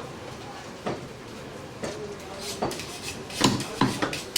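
Butcher's knife chopping goat meat into chunks: a handful of sharp chops at irregular intervals.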